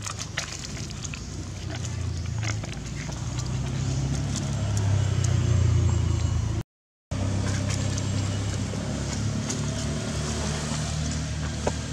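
A low engine rumble, like a motor vehicle running, swelling to its loudest about halfway through, with light scattered clicks and rustles over it. The sound cuts out for a moment near the middle.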